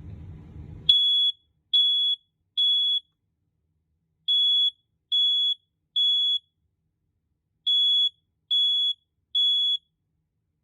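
BRK 4120B smoke alarm sounding its test alarm. Its horn gives loud, high-pitched steady beeps in three rounds of three, each round followed by a pause (the temporal-three evacuation pattern), starting about a second in.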